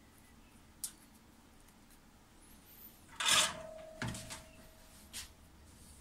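Sparse handling noises from working wires and small tools by hand: a light click about a second in, a louder rustle and knock about three seconds in followed by a faint thin tone for about a second and a half, then a few more light clicks.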